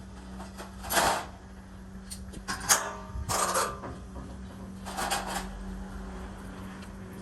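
Metal clanking and rattling of aluminium frame members being shifted and knocked into position. There are four separate bursts, the sharpest about two and a half seconds in, over a steady low hum.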